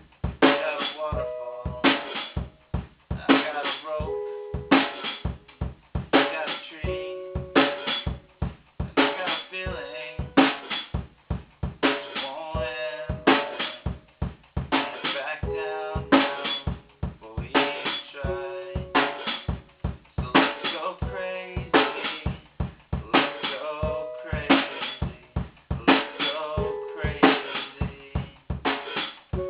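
One-man band playing an instrumental passage: a drum kit with kick and snare keeps a steady beat under a pitched instrument holding sustained notes.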